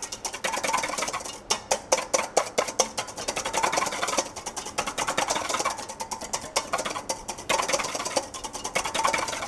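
Wire balloon whisk beating egg whites by hand in a stainless steel bowl: a fast, continuous run of clicking, scraping strokes of the wires against the metal. The whites are still at the loose, foamy early stage, being whipped alone before any sugar goes in.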